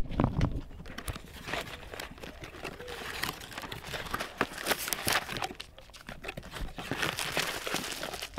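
Paper and cardboard packaging rustling and crinkling in irregular bursts as a reel box is opened and its paper inserts are pulled out, with one sharp knock right at the start.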